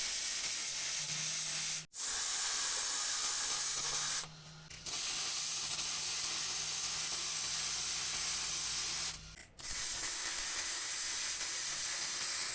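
MIG welder tack-welding steel motor-mount brackets to the car's frame, a steady frying hiss that stops abruptly for a moment about 2 s, 4.5 s and 9.5 s in as the trigger is released and the weld restarts.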